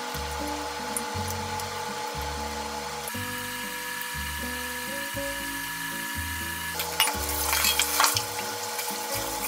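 Sliced taro frying in a pan of oil, a steady sizzle, under background music with slow, held low notes. A few sharp clinks and knocks come near the end.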